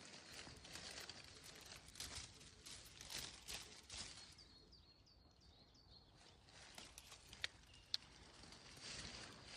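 Faint rustling and crackling of someone moving through undergrowth, with a bird's quick string of about five high chirps midway.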